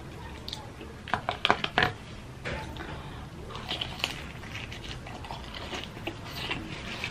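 Crunchy bites and chewing of crispy Jollibee Chickenjoy fried chicken, close to the microphone: a quick run of loud crackling crunches about a second in, then softer crunching chews.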